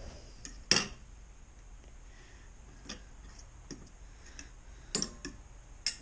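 Irregular light clicks and knocks of a utensil against a dish as fish fillets are dipped in egg wash, the loudest about a second in, with several more scattered through the rest.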